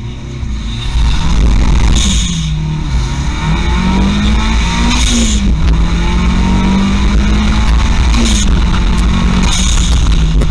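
Turbocharged Skoda 120 launching from a standstill and accelerating hard, heard from on board. The engine note climbs and falls back at each of about three gear changes, with a short hiss around each shift.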